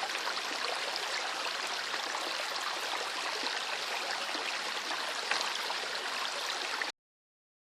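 Shallow river water running steadily over stones, a dense rushing babble, which cuts off abruptly about seven seconds in.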